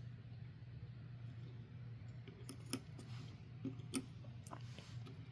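Scattered small clicks and taps of hands and a screwdriver fastening an M.2 SSD onto a motherboard, over a low steady hum.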